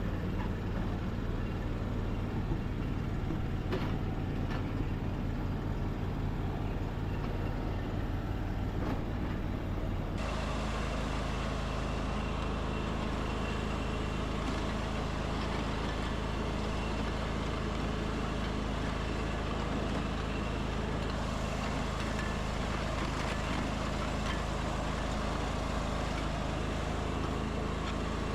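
Riding lawn mower engine running steadily. About ten seconds in, the engine sound changes abruptly to a different steady running note.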